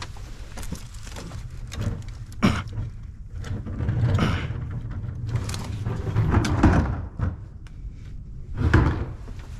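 Irregular knocks and clunks of hand-tool and metal-part work on an alternator mounting, several a few seconds apart.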